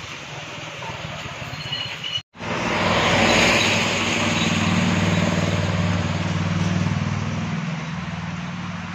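Rain on a wet street with traffic passing and a few bird chirps. The sound cuts out for an instant about two seconds in, then comes back as a steady rain hiss with a low engine hum underneath.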